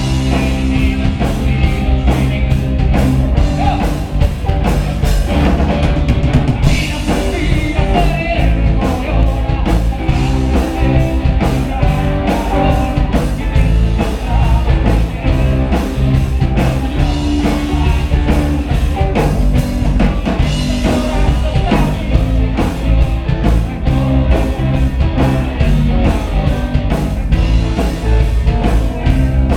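Live rock band playing a song loudly, with electric guitar over a steady rhythm section, in the Los Angeles rock urbano style.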